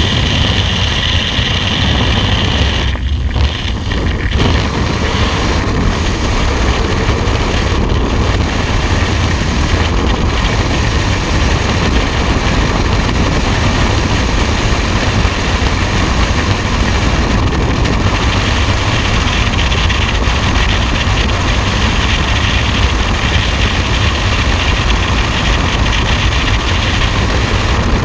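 Loud, steady rush of freefall wind on a body- or helmet-mounted camera's microphone, with the jump aircraft's engine at the open door in the first seconds, as skydivers exit and fall.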